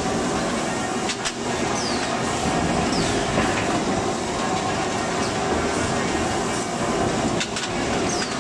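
Hot forging line for nuts running, with mechanical flywheel presses and feed equipment making a continuous clattering rattle. A couple of sharp metal clanks stand out, along with a few short falling squeaks.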